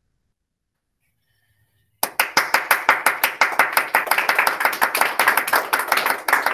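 Near silence, then about two seconds in a small group breaks into applause: many hands clapping close by, quick and steady.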